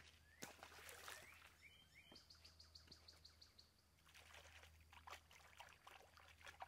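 Faint lakeside ambience: birds chirping, with a quick trill of high repeated notes about two seconds in, then light splashing and dribbling of water from about four seconds in, over a low steady hum.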